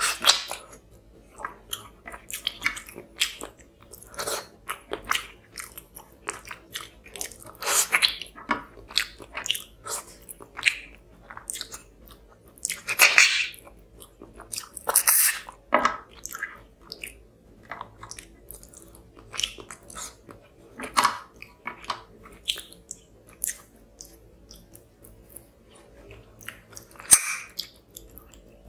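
A person chewing and smacking while eating fish curry and rice by hand: many short, wet mouth clicks, with a few louder bites spread through.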